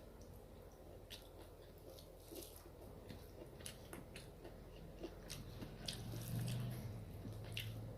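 Close-up mouth sounds of a person chewing a meal of rice and curry: scattered wet smacks and small clicks. From about six seconds in, a low hum from the eater's closed mouth is the loudest sound.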